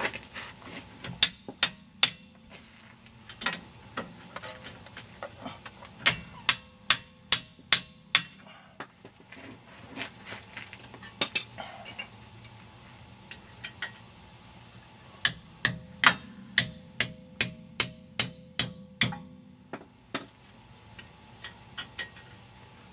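Sharp metallic clicks of a hand tool on the front hub bolts of a Jeep Grand Cherokee, coming in runs of several at about two to three a second with short pauses between, as the bolts are worked loose.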